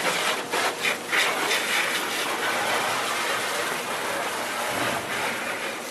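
Razor blade being scraped across a truck's painted panel to shave off paint overspray. A steady rasping hiss, with a few separate strokes in the first second.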